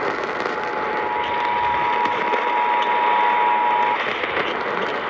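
Emergency Alert System two-tone attention signal received over a radio with heavy static hiss. The steady dual tone cuts off about four seconds in, leaving the static, just before the spoken alert message.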